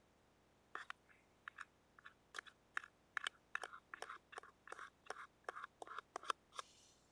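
A plastic spoon scraping tuna out of a metal tin into a plastic jar: a run of short scrapes and clicks, about two a second, starting about a second in.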